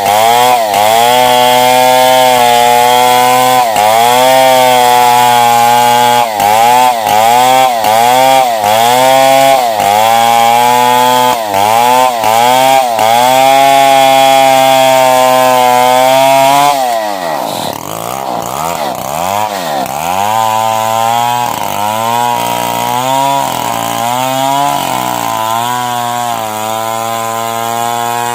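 Stihl 070 two-stroke chainsaw ripping lengthwise through a log at full throttle, its engine pitch sagging under load and picking back up every second or so. About 17 seconds in it drops to a lower, quieter speed with uneven revving.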